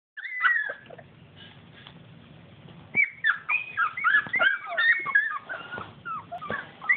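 A litter of young puppies whimpering and squeaking: many short, high-pitched calls that bend up and down in pitch. A brief burst comes right at the start, then from about three seconds in a busy stream of overlapping squeaks.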